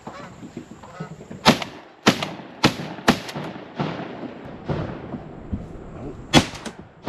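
Shotgun blasts at passing geese: four or five sharp shots in quick succession in the first few seconds, then one more, the loudest, near the end.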